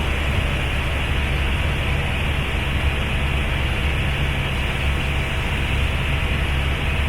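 Helicopter in flight, heard from inside the cabin: a steady, loud drone with a strong low hum under a constant hiss.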